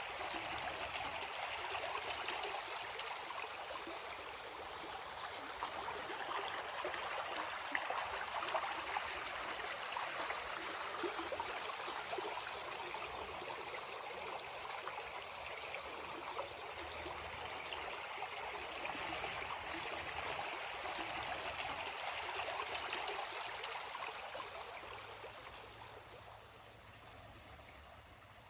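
Creek water flowing and babbling over rocks: a steady rushing trickle that grows quieter over the last few seconds.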